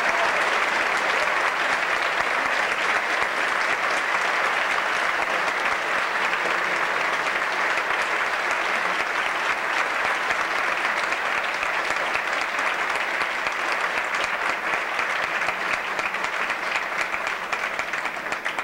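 Audience applauding at the end of a song, a dense, steady ovation that thins slightly near the end.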